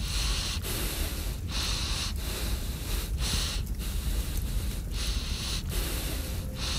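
A person breathing hard and fast, each breath a hiss, in a steady rhythm of a little more than one breath a second, over a low steady hum.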